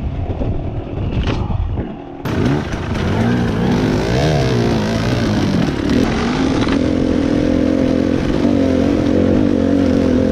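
Dirt bike engine under way: after an abrupt change about two seconds in, it revs up and down with the throttle, then holds a steady pitch from about six and a half seconds on. Before the change, wind noise on the microphone.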